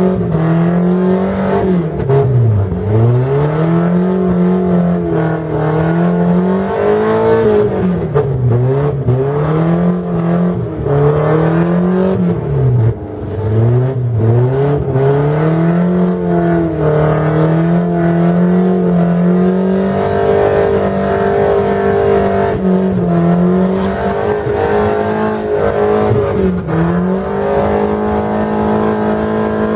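Volvo 740 drift car's engine held at high revs while drifting on ice, the revs wavering with the throttle and dropping sharply then climbing back about four times.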